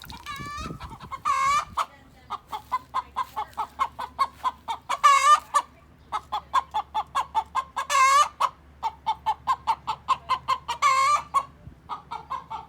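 A chicken cackling: a quick run of short clucks, several a second, broken about every three seconds by a louder, drawn-out squawk, four times over.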